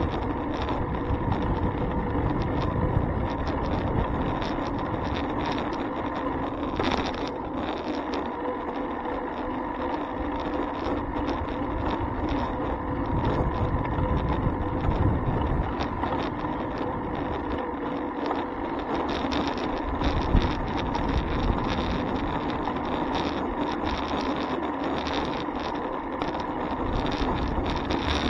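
Steady wind and road noise from a bicycle in motion, picked up by a handlebar-mounted camera, with a faint steady hum and one brief knock about seven seconds in.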